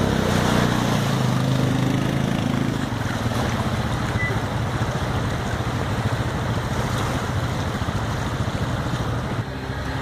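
An ATV engine running as it churns through a fast-flowing creek, fading out about three seconds in and leaving the steady rush of the creek's rapids.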